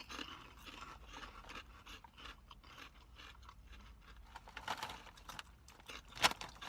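People crunching and chewing fried pork rinds, irregular crisp crackles with a louder crunch about six seconds in.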